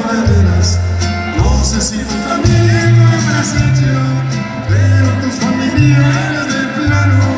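Norteño band playing live: button accordion carrying the melody over a heavy bass line and drums, with a man singing.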